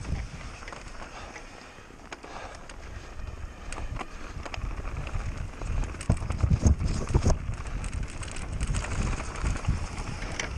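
Mountain bike riding fast down a rough trail: tyre rumble and rattling knocks from the bike, with wind on the microphone. The rumble and knocks are heaviest about six to seven seconds in.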